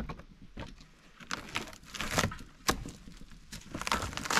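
Weathered wooden strips and old tarp being pried and torn off a log wall by hand: irregular sharp cracks and snaps, several a second at times, with scraping and tarp crinkling between them.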